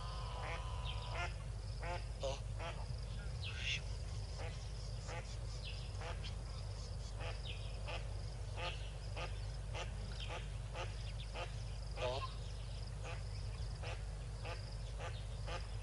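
Yellow-billed ducks calling: a long run of short quacking calls, one every half-second to a second.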